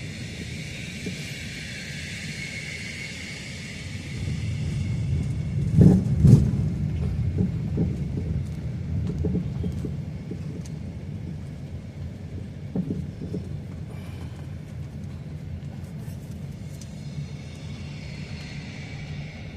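Car driving slowly, a steady low rumble of engine and road noise, with a couple of heavy thumps about six seconds in.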